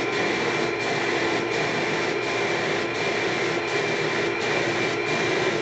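Hose-fed paint spray gun spraying shellac-based primer: a steady hiss of air with a steady whine from its air supply.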